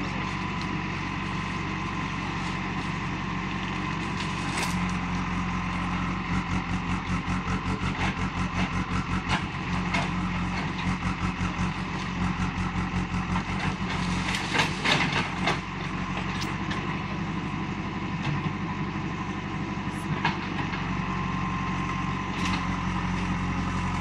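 JCB backhoe loader's diesel engine running under load as its front bucket pushes against a palm trunk, the engine note wavering rapidly for several seconds in the middle. A cluster of sharp knocks comes about fifteen seconds in.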